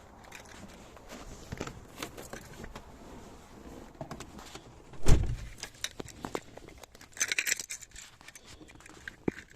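Car keys jangling and clicking, with one heavy thump about five seconds in and a brighter burst of jingling a couple of seconds later.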